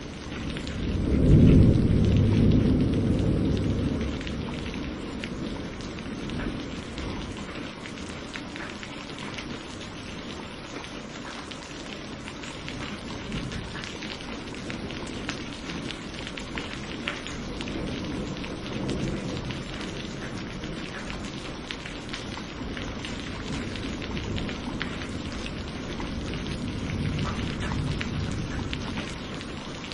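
Steady heavy rain pattering with a loud roll of thunder about a second in that fades over a few seconds, and fainter distant rumbles of thunder later on.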